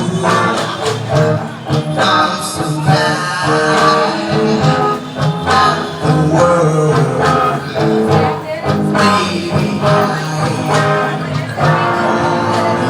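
Live music: a singer over plucked string instruments and struck beats, played continuously.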